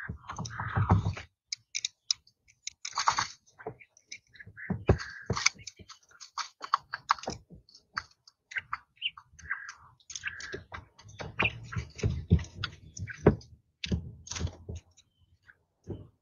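Quail chicks pecking and scratching, making irregular clicks and taps with soft thumps, with a few short peeps.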